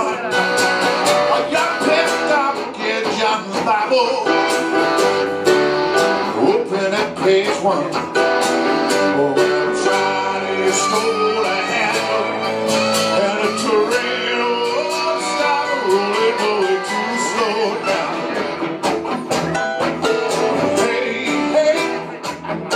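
Live band music: fiddle, acoustic and electric guitars and keyboards playing together, with the level dipping briefly near the end.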